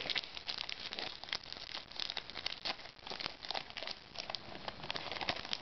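A baseball card pack's wrapper crinkling and crackling in the hands as it is torn open, with many quick irregular crackles.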